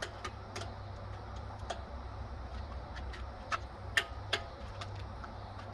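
Scattered light clicks and taps of tools and brake parts being handled during a brake pad change, with a few sharper ones about four seconds in, over a steady low hum.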